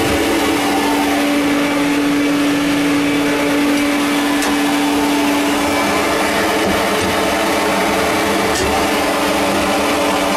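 Vacuum running steadily with a constant hum, its hose drawing spent glass blasting beads off the floor of a sandblast cabinet.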